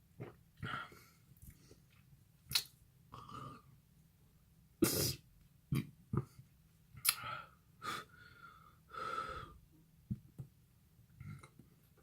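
A person's short, noisy breaths and coughs, about a dozen in a row, the loudest about five seconds in, as he reacts to drinking sour lemon juice.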